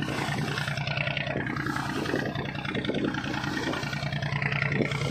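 Motor launch's engine running steadily with a low, even hum, over a constant hiss.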